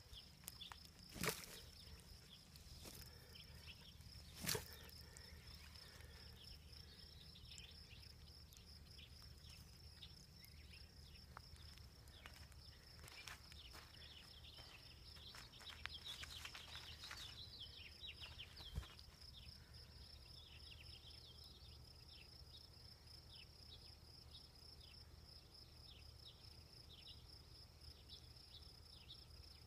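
Faint outdoor ambience: a steady, pulsing high-pitched insect trill throughout, with scattered short chirps mostly in the middle and a few soft knocks, over a faint low hum.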